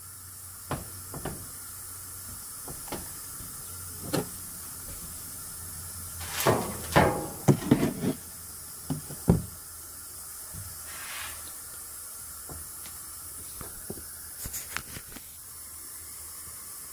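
Steady background hiss and low hum, with scattered light knocks and clicks. The knocks cluster about six to eight seconds in, where they are loudest, with a few more near the end.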